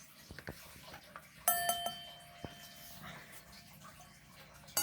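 A 6-inch IBM fire alarm bell gong struck once about a second and a half in, ringing with a clear metallic tone that fades over about a second, with a few light handling clicks around it.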